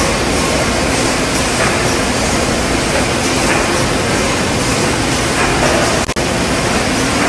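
Loud, steady din of yogurt filling and packing machines running on a production line, an even rushing noise with a brief break about six seconds in.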